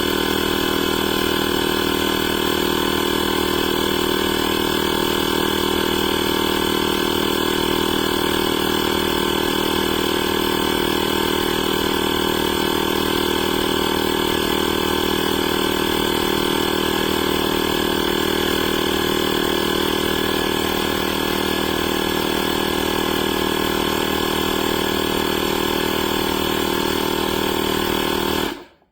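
Inzeetor 12V portable tire inflator's small air compressor running with a steady, even drone, then stopping abruptly near the end.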